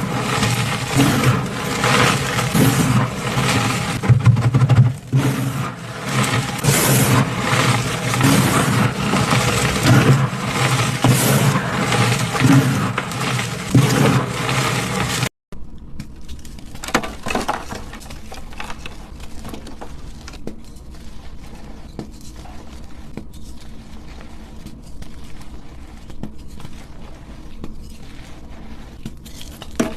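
Gym chalk being crushed, a dense run of crunching and crackling. About halfway through it breaks off for an instant, then goes on more softly.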